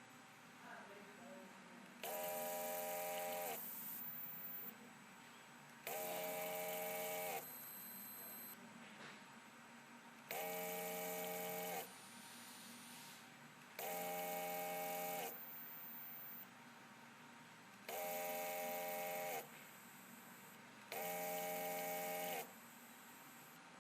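Motor for a homemade CNC machine running in six short bursts of about a second and a half each, a few seconds apart. Each burst is a steady whine of several stacked tones that bends slightly in pitch as it starts and stops.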